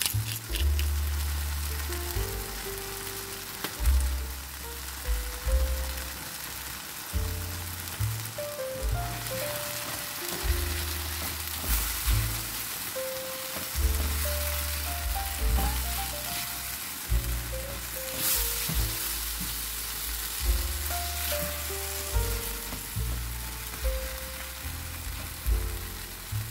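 Tomatoes, onion and red bell pepper sizzling in a nonstick frying pan, stirred with a spatula, over background music with a steady bass line.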